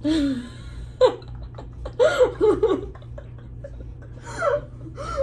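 Girls laughing in short bursts, with a run of quick "ha" pulses about two seconds in.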